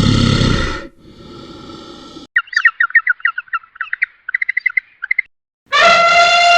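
A bird chirping in quick short notes for about three seconds, between other animal calls: a pitched call that ends about a second in, and a long loud call that begins near the end.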